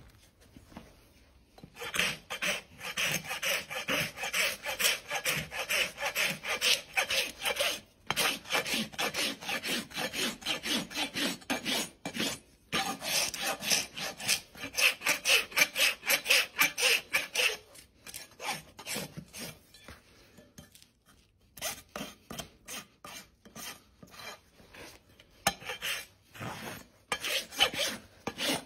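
Farrier's hoof rasp filing a horse's hoof, scraping the horn level in quick back-and-forth strokes. The strokes start about two seconds in and go on with short breaks, easing off for a few seconds about two-thirds of the way through before picking up again.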